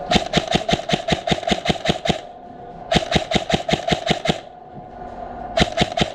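Airsoft electric rifle, a Krytac Trident MKII PDW-M, firing three bursts of rapid, evenly spaced shots, about seven a second. The first burst lasts about two seconds, the second starts about three seconds in, and the third starts near the end.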